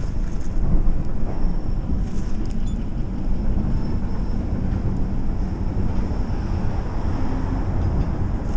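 Steady low rumble of a passenger train's cars rolling along the track below, with wind noise on the microphone.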